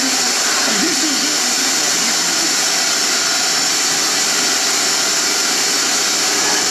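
Steady radio hiss between stations, played through the Crown CSC-950L radio cassette recorder's speakers while its tuner is moved from one station to the next, with a faint bit of a voice fading just after the start.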